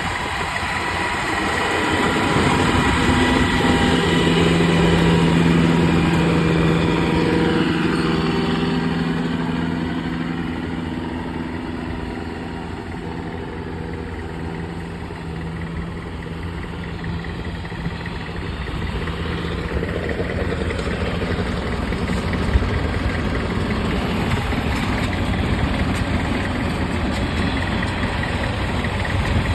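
Diesel engine of a Yanmar YH820 rice combine harvester running at a steady pitch. It grows louder in the first few seconds, then fades away over the middle stretch, leaving a rougher mechanical rumble without a clear engine tone.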